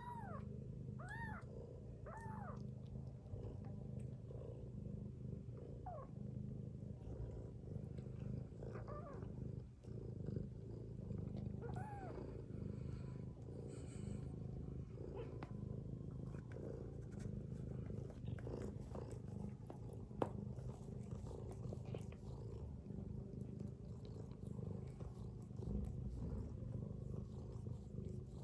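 Mother cat purring steadily in a continuous low rumble. Short, high, rising-and-falling mews from her kittens break in a few times in the first half.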